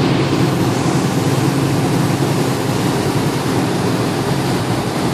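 Motorboat under way at speed: a steady engine drone under the loud rush of churning water from the wake.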